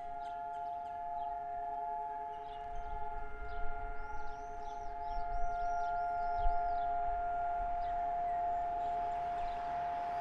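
Israeli civil-defence siren holding one long steady tone of two close pitches: the unbroken memorial siren marking the Day of Remembrance for fallen soldiers and victims of terrorism, not the rising-and-falling rocket alert.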